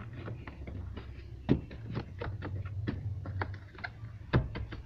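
Car door's rubber seal and plastic sill trim being pressed back into place by hand: a run of small clicks and taps, with louder knocks about one and a half seconds in and near the end. A low steady hum runs underneath.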